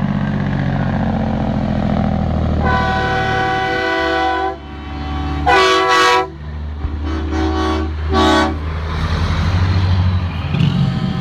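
Semi trucks' diesel engines running as they pass close by, while truck air horns sound: a long blast about three seconds in, a louder, shorter blast near the middle, then two quick toots.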